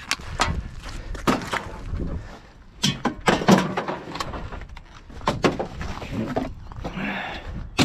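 Rummaging through a wheelie bin: a run of sharp knocks, clatters and rustles as things in the bin are moved about.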